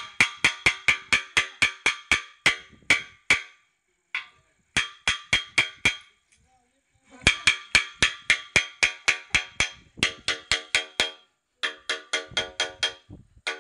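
Rapid metallic raps on an iron pipe, about five a second, each ringing briefly. They come in runs broken by short pauses about three and a half, six and eleven seconds in.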